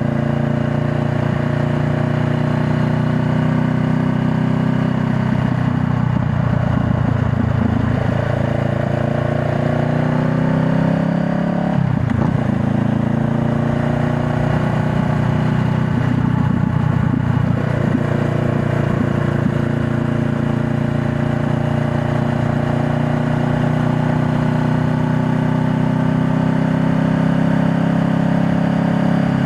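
2020 Honda Rebel 500's 471 cc parallel-twin engine running under way, its pitch climbing as the bike accelerates, with a sudden break about twelve seconds in like a gear change, then climbing again before settling to a steady cruise.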